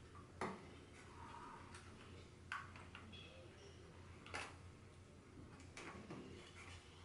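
Faint, scattered clicks and taps of gloved hands fitting flat LVDS ribbon cables into their connectors on a TV's T-Con board, with three sharper clicks about half a second, two and a half and four and a half seconds in. A low steady hum sits underneath.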